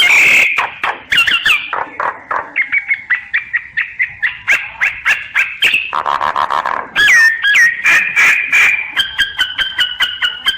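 Pet myna singing: a long run of rapid repeated chattering and whistled notes, several a second, with a few slurred whistles about seven seconds in.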